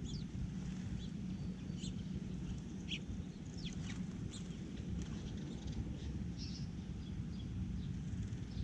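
Wild birds chirping: scattered short high chirps and a few quick falling notes, over a steady low rumble.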